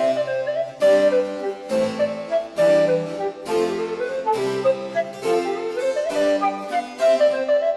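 Baroque-style harpsichord background music, a steady run of notes.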